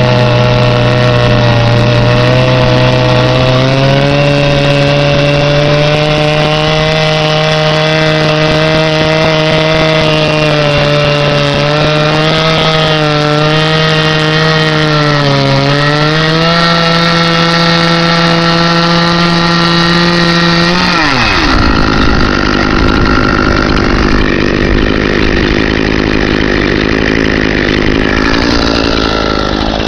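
Two-stroke chainsaw on a chainsaw mill running under load, ripping a board off a log, its engine note holding steady with small dips in pitch. About 21 seconds in the pitch drops sharply and the sound turns rougher and lower.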